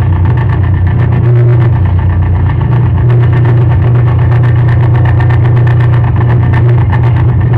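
Live electronic noise music: a loud, steady, low droning hum with a dense stream of crackling clicks over it, played on a table of electronic gear.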